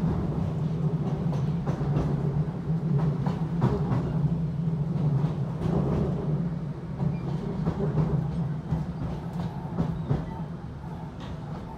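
Interior running noise of a British Rail Class 455 electric multiple unit in motion: a steady low rumble with scattered clicks from the wheels over the rails, getting somewhat quieter near the end.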